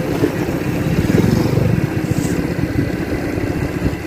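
Motorcycle engine running steadily at road speed, heard from the rider's seat. An oncoming motorcycle rickshaw's engine adds to it as it passes close, loudest about a second in.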